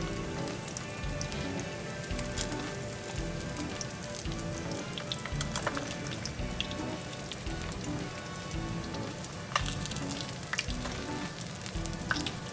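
Pieces of flour-coated rainbow trout (karaage) shallow-frying in hot oil in a frying pan: a steady sizzle with scattered sharp crackling pops.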